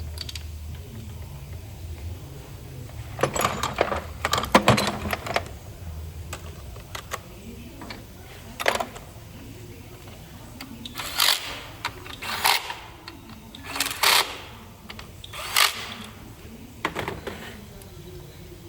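Mechanic's tools at work: a cluster of clicks and metal clatter a few seconds in, then four short sharp bursts about a second and a half apart, over a low steady hum.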